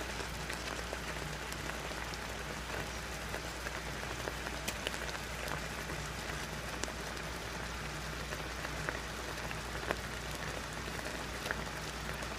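Pork chops and vegetables in tomato sauce simmering in a skillet: a steady crackling and bubbling with scattered small pops.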